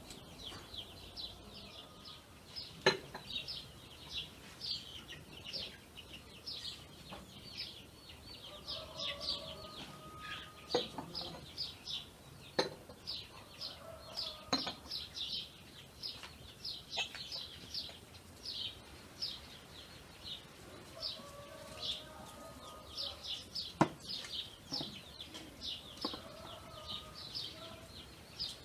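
Small birds chirping busily and without a break, with hens clucking now and then. A few sharp clinks of cutlery and dishes from a meal at a table are the loudest sounds, about three seconds in and again near the end.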